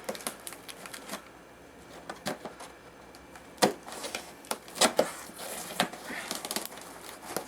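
Cardboard shipping box being opened by hand: scattered clicks, scrapes and rustles of cardboard and packing tape, with sharper clicks about three and a half seconds and five seconds in.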